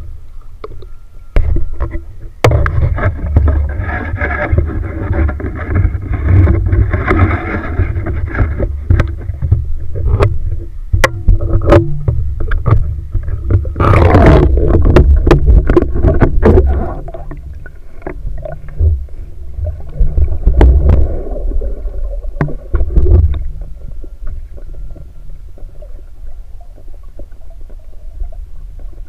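Underwater rumble from water moving around a submerged camera, with many sharp clicks and knocks. It is loudest in a burst about halfway through, then settles to a softer rumble.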